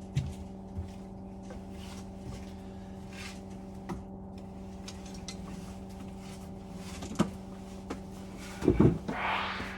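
Scattered clicks and knocks of metal parts being handled during a boiler strip-down, over a steady low hum. Near the end come a few heavier clunks, then a short scrape.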